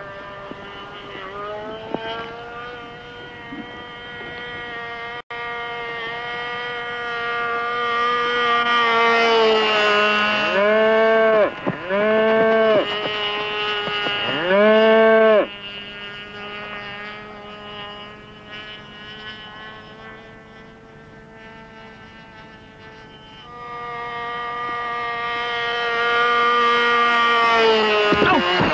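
An engine running steadily at high revs, revved up and back down three times in quick succession about a third of the way in, then settling again.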